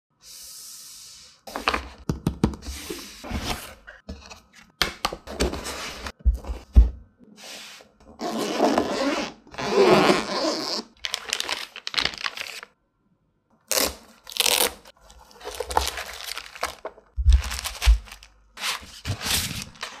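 Unboxing handling sounds in irregular bursts: a cardboard box lifted and opened, packaging rustling and tearing, and a zip-up carrying case unzipped in one long pull about halfway through, with scrapes and thunks on the desk.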